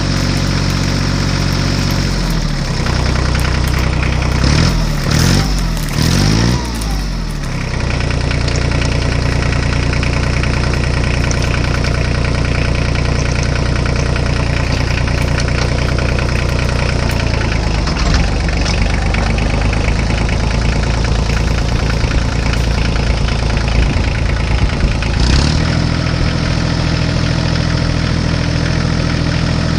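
Tractor engine idling steadily, revved up and down a few times between about four and seven seconds in.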